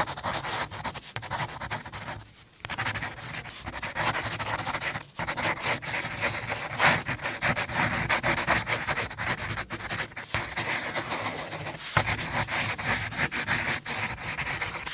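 Steady rubbing and scraping with many small knocks as a tufted upholstered footboard panel is handled and pushed into place against a wooden bed frame.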